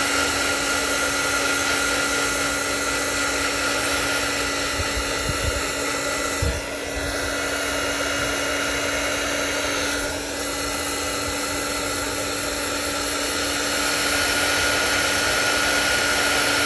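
Handheld heat gun running steadily, its fan blowing with a constant whine over wet epoxy resin to pop surface bubbles. The sound dips briefly twice, about six and a half and ten seconds in.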